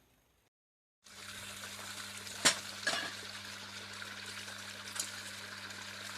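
Steady hiss like running or splashing water over a low hum, broken by a few sharp knocks, the loudest about two and a half seconds in.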